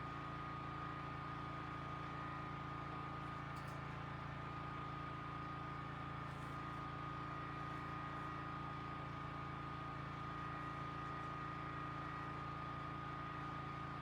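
Generator running steadily, a constant hum with a steady tone above it.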